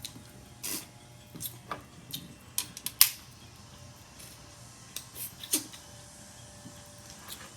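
Snow crab shells cracking and snapping as the legs are broken open for eating, in scattered sharp clicks, the loudest about three seconds in.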